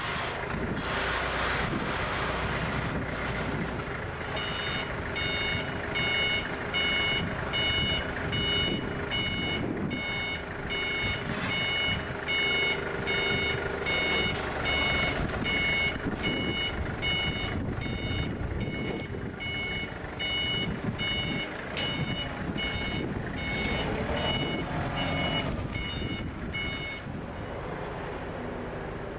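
Forklift backup alarm beeping at a steady rate, a little more than once a second, over the forklift's running engine. The beeping starts about four seconds in and stops shortly before the end.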